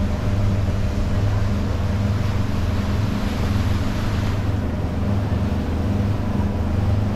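A tour boat's engine running steadily under way, a low even hum over a steady hiss of wind and water.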